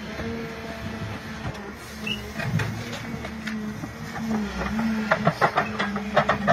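Hydraulic stump shear working a tree stump: the carrier machine's engine and hydraulics drone steadily, rising and falling in pitch under load. About five seconds in comes a quick run of sharp, loud cracks as the stump's wood gives way.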